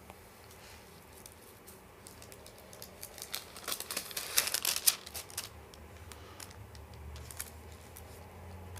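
Thin pages of a Bible being leafed through: a crinkly rustling of paper, loudest about three to five seconds in.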